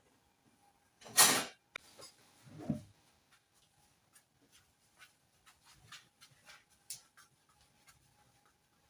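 Kitchen handling sounds. A short, loud scrape or rustle comes about a second in, then a brief lower sound, then a run of light clicks and taps.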